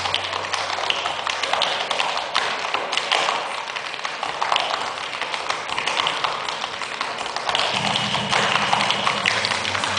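Tap shoes striking the floor in fast, dense, irregular rhythms of tap dancing. A low steady musical note comes in near the end.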